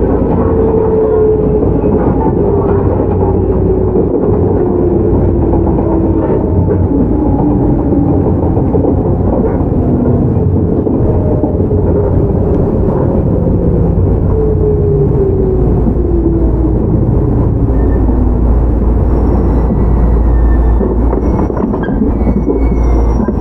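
Shizuoka Railway 1000 series resistance-control electric train running on the rails, its motor and gear whine falling steadily in pitch as the train slows. Faint high squeals join near the end.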